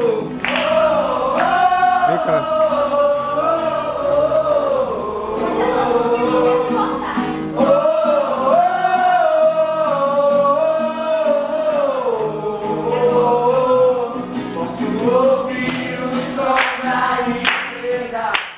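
Gospel song: a sung melody over backing music, stopping abruptly at the end.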